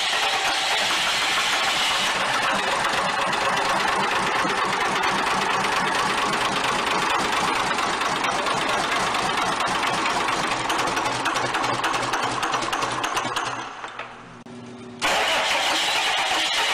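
Cummins marine diesel engine running steadily, with a fast firing rhythm; its exhaust carries cooling water supplied from a hose. About fourteen seconds in, the sound drops away for a moment and then comes back abruptly.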